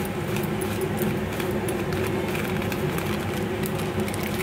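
Onions and capsicum sizzling in hot oil in a pressure cooker pan, with many fine crackles over a steady low hum.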